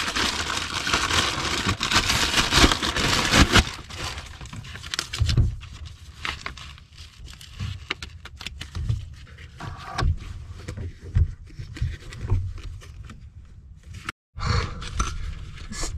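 Crinkling plastic packaging as a roll of foil-faced foam pipe-wrap insulation tape is unwrapped, loudest for the first few seconds. Then quieter handling follows: scattered taps and rustles as the tape is peeled and pressed on.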